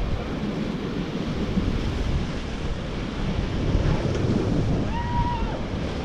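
River rapids: loud, steady rushing water around a raft, with wind buffeting the microphone.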